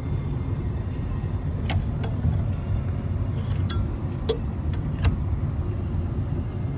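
Handling noise from a tweed jacket on its hanger: a steady low rumble with a few light clicks, and a brief cluster of small metallic tinkling ticks a little past the middle.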